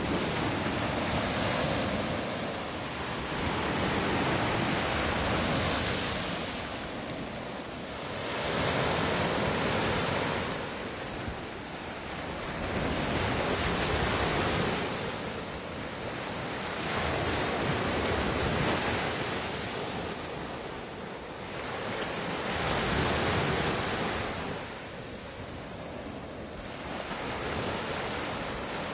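Sea waves breaking and washing in, the surf swelling and fading about every four to five seconds.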